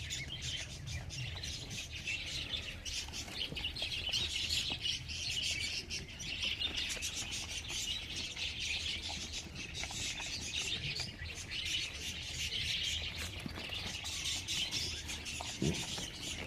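Many small birds chirping and twittering at once, a dense, busy chorus that keeps going at an even level.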